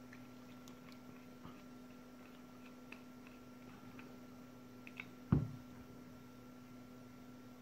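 Faint small clicks of a screwdriver turning a screw in the metal case of a switching power supply. About five seconds in comes a single thump as the screwdriver is set down on the rubber mat, over a steady faint hum.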